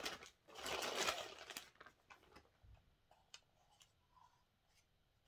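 Plastic packaging crinkling for about a second as an item is unwrapped, followed by a few faint clicks and taps as it is handled.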